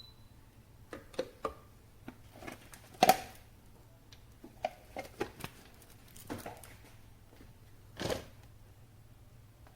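A scattering of light clicks and knocks, like small objects being handled. The loudest is a sharp knock about three seconds in, and a softer thud comes near eight seconds.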